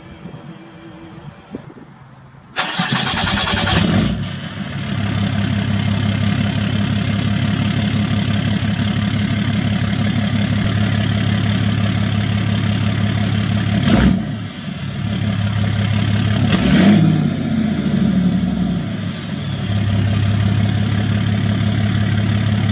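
Ram 2500's 6.7 L Cummins inline-six turbodiesel cranking and firing up about two and a half seconds in, then settling into a steady idle, with its note rising briefly twice. It is the first start on a freshly installed AirDog lift pump fuel system.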